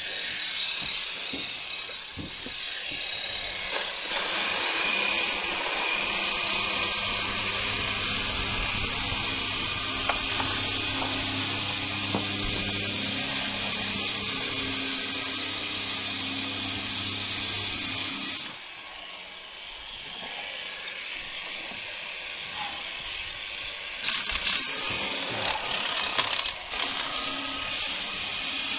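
Makita 125 mm sander with an 80-grit disc running against a wooden sash window frame, smoothing off the leftover paint and wood after rough stripping. It starts up about four seconds in and runs steadily, drops away sharply at about eighteen seconds, and comes back at about twenty-four seconds in shorter, uneven spells.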